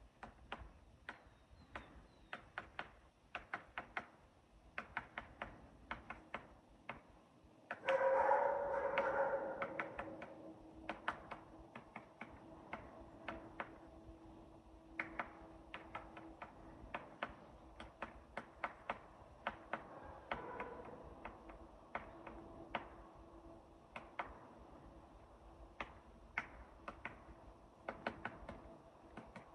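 Woodpecker pecking at wood: single sharp knocks, irregular and roughly one to three a second, not a fast drumming roll. About eight seconds in, a louder pitched sound lasts about two seconds, and a faint steady hum runs from then on.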